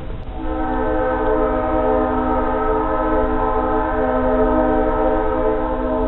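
Small narrow-gauge steam locomotive's whistle blowing one long steady blast, starting about half a second in and fading near the end, over a low rumble from the moving train.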